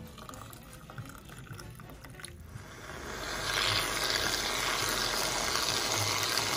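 Hot chocolate poured into a mug. Then, from about two and a half seconds in, a Reddi-wip aerosol can sprays whipped cream onto it with a loud, steady hiss.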